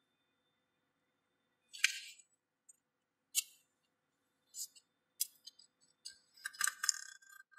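Folded origami paper rustling and crinkling in short crisp bursts as hands press and crease it, with silent gaps between, the rustles coming thicker near the end.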